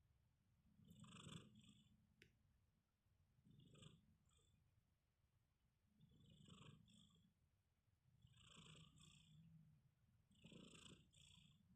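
Sleeping kitten snoring faintly, one soft snore about every two to two and a half seconds, five in all.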